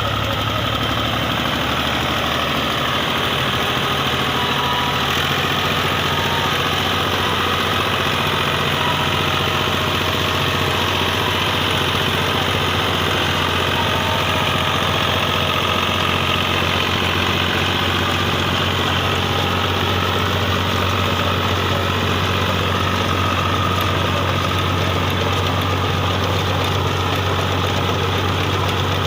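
Al Ghazi tractor's diesel engine running steadily.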